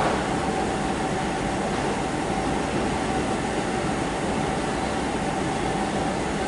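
South Western Railway Class 455 electric multiple unit standing at the platform, its onboard equipment giving a steady hum with one constant tone.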